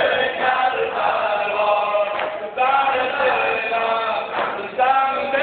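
A group of men chanting together in held, sung notes, with short breaks between phrases.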